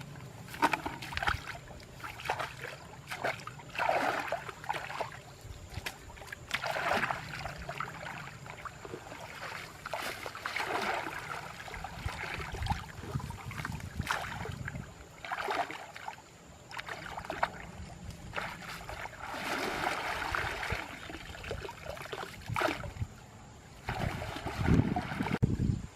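Water splashing and sloshing in irregular surges every second or two, as from wading, paddling or handling a net in shallow water.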